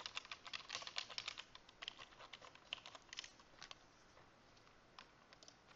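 Faint computer keyboard typing: a quick run of keystrokes for the first three and a half seconds, then a few single key clicks near the end.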